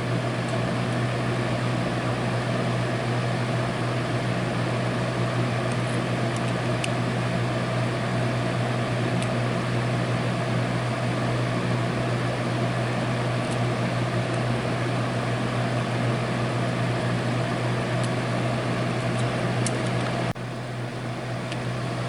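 Steady mechanical hum with a strong low drone, stepping down slightly in level near the end.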